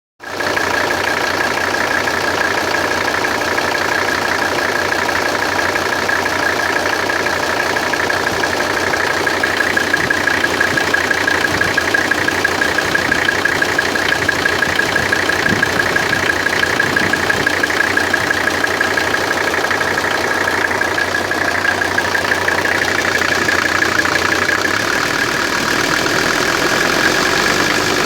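1984 Mercedes-Benz 300SD's 3.0-litre five-cylinder diesel idling with a steady, fast clatter. The owner is trying to diagnose the clatter.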